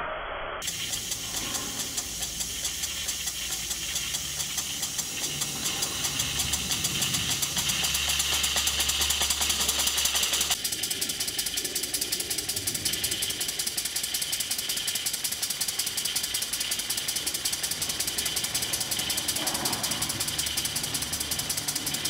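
Stuart Models Victoria horizontal mill engine, a model steam engine, running steadily with a rapid, even beat of its moving parts. The tone changes abruptly about ten seconds in.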